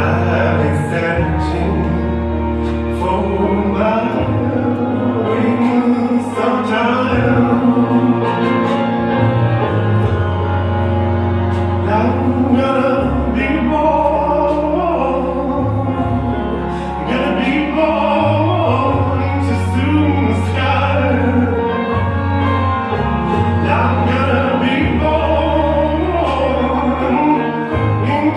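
A song with a singing voice over long held bass notes.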